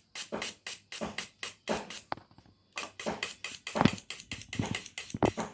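Mazda 3 fuel injector on a pressurised fuel rail, pulsed by hand through its negative trigger: a fast run of sharp clicks with short sprays, about six a second, pausing briefly about two seconds in. The injector opens and shuts cleanly on each pulse, a sign that it is working.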